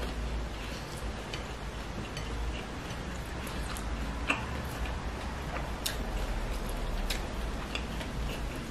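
Scattered soft clicks of eating, from chewing and from fingers kneading a ball of sticky rice, over a low steady hum.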